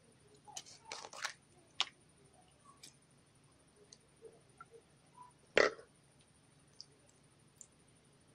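Putty slime being squeezed and kneaded by hand, giving scattered wet pops and clicks as air pockets burst. There is a quick cluster of pops early, then the loudest squelching pop a little past the middle.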